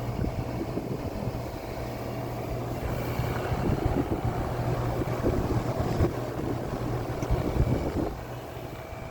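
A SureComfort SP14 3-ton heat pump outdoor unit running with a steady low hum and a few steady higher tones, over an uneven rumble. The level dips a little near the end.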